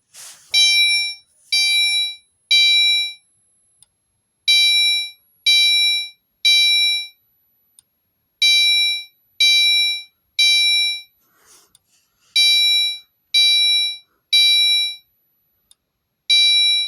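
Gentex Commander 3 fire alarm horn sounding the code 3 (temporal-3) evacuation pattern: three short horn blasts, a pause, then three again, repeating about every four seconds.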